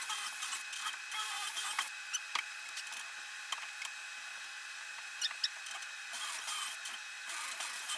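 Drill boring a hole through wood: a thin, steady whirr with scattered sharp clicks and crackles.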